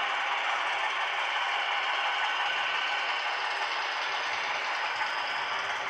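HO scale model freight train running past on its track: a steady mechanical rattle of the cars' wheels on the rails and the locomotive's drive gears.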